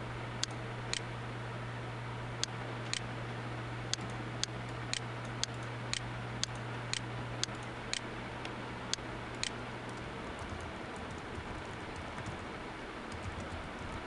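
Sharp single clicks, about two a second with some beats skipped, then fainter, quicker computer keyboard typing in the later seconds. A low steady hum stops about ten seconds in.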